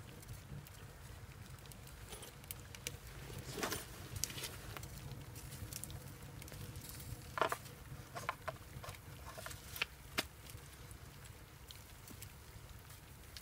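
A wood-fired Lepus rocket stove burning and drawing with a low steady rumble, with scattered light clicks and knocks, the sharpest about seven and a half and ten seconds in.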